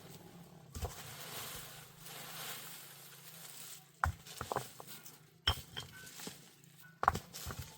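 A soft hiss, then from about halfway through a series of sharp, irregular knocks and clinks of hard objects, a few of them ringing briefly like metal.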